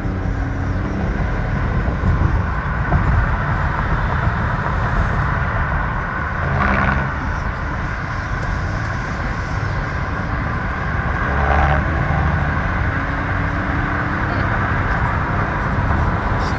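Steady road and engine noise heard inside a car's cabin while driving at highway speed.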